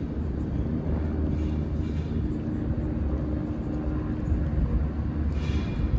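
Steady low rumble of outdoor urban background noise, like distant traffic, with a faint steady hum and a brief hiss near the end.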